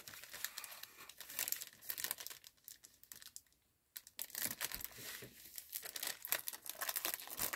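Clear cellophane bag crinkling in short, uneven spells as hands fold it around a paper bag topper, with a brief lull about three seconds in.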